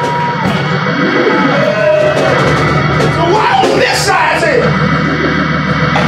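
Gospel church music with shouting and yelling voices over it, and a steady low bass that comes in about two and a half seconds in.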